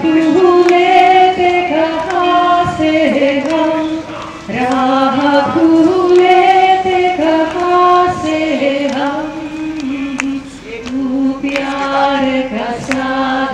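Voices singing a slow devotional bhajan in long held notes. The melody moves in stepwise phrases of a second or two each.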